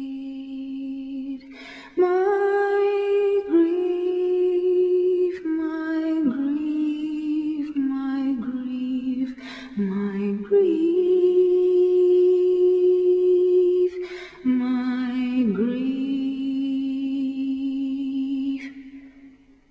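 A woman's voice singing unaccompanied, a cappella, holding long slow notes with a slight waver. The singing stops near the end.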